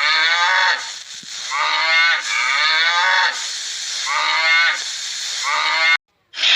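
Cattle mooing: about five calls in a row, each falling in pitch, cut off suddenly near the end.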